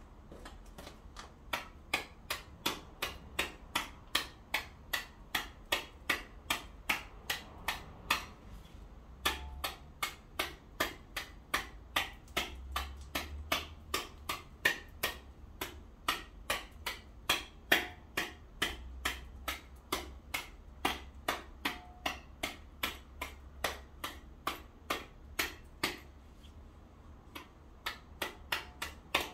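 A hand tool striking ice on pavement again and again, sharp regular knocks about two to three a second, chipping away the leftover ice. There is a brief pause about eight seconds in and another near the end.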